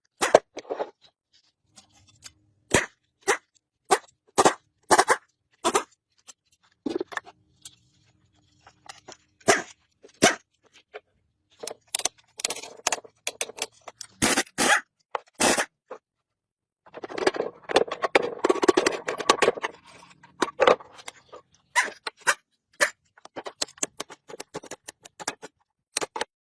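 Irregular sharp knocks and clicks, with bouts of scraping; the longest, densest scraping comes about two-thirds of the way in.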